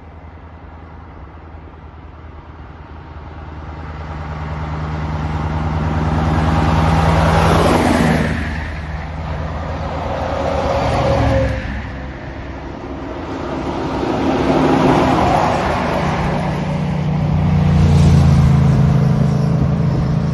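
A convoy of heavy trucks drives past one after another, the engine and tyre sound growing louder as each approaches and dropping in pitch as it goes by, about four passes in all.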